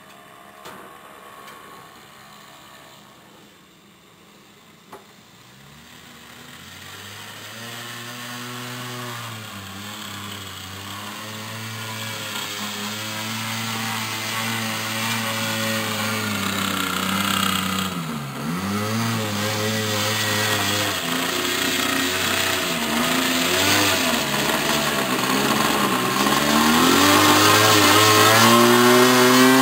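Small engine of an RC model airplane running at low throttle as the plane taxis on skis over snow, faint at first and then growing steadily louder as it comes close. The engine note dips and recovers several times as the throttle is eased off and opened again.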